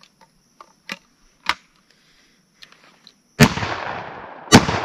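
A 12 gauge Rossi coach gun double-barrel shotgun fires two shots about a second apart, one barrel and then the other, with full-power birdshot loads. Each report rings out in a long fading echo. A few light clicks come before the shots.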